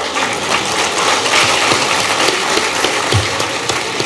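Audience applauding: many hands clapping at once in a dense patter.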